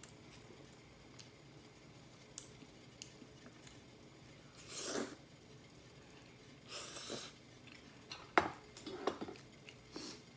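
Quiet eating at a table: two short noisy bursts about midway, then a run of small clicks and clinks of utensils against dishes.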